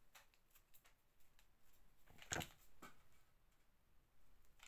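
Near silence: faint handling noises as ribbon craft pieces and a hot glue gun are handled, with one light click a little past two seconds in.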